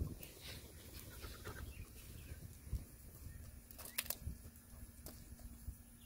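Quiet rural outdoor ambience: a low steady rumble, a few faint bird chirps in the first second and a half, and two short sharp clicks about four and five seconds in.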